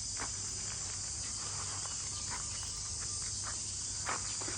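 Steady high-pitched insect chorus, an unbroken shrill drone, with a few faint short sounds over it.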